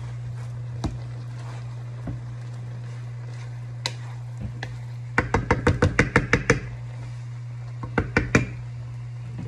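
Wooden spoon knocking against a metal pan while stirring noodles: scattered single taps, then a quick run of about a dozen knocks around the middle and three more near the end, over a steady low hum.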